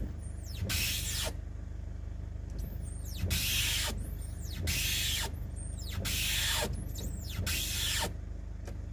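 Ford Everest windscreen wipers sweeping, with a squeak from the wiper's rotor (pivot) that falls in pitch on each sweep, followed by the swish of the blade across the glass, about five times.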